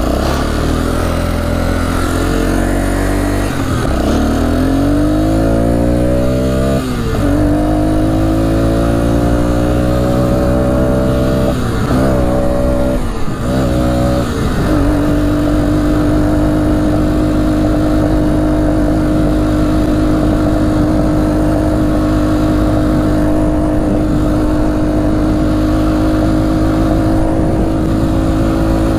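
1998 Arctic Cat 300 2x4 ATV engine accelerating under way, its pitch rising in several pulls with a short dip between each as it shifts up, then holding steady at cruising speed from about halfway through.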